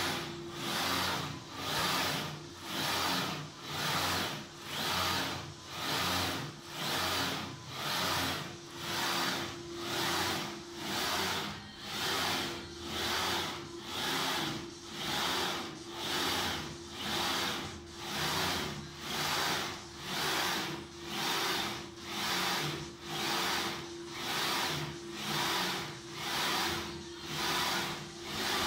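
DIY pick-and-place machine's gantry, driven by JMC servo motors on high-speed ball screws, moving back and forth in repeated test moves. A rush of mechanical noise swells and fades about once a second over a steady hum.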